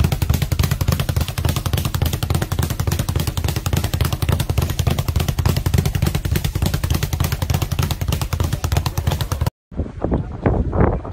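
Speed bag being hit in a fast, steady rattle, many knocks a second as the bag rebounds off the wooden platform. It cuts off suddenly about nine and a half seconds in, and a few short, unrelated sounds follow.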